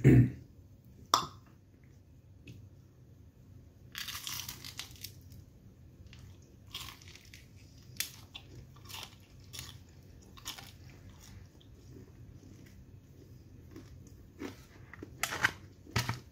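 Close-miked eating of a flaky puff-pastry bureka: the crisp pastry crackles and crunches as it is torn and bitten, with chewing in between. There is a low thump at the very start and a dense burst of crackling about four seconds in.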